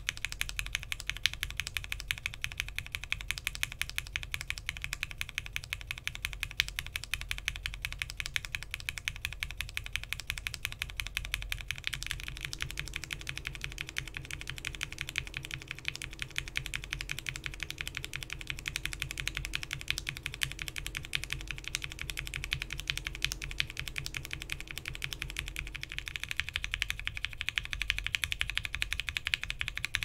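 Fast, continuous typing on a mechanical keyboard fitted with lubed Cherry MX Black linear switches, PBT keycaps and an FR4 plate. About twelve seconds in, the switches change to Cherry Blacks with Gateron Ink stems, and near the end to Cherry Blacks with Gateron yellow stems.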